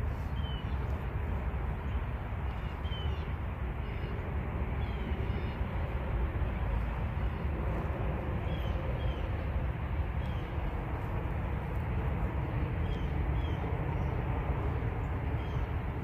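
Steady low outdoor rumble, with short high bird chirps now and then.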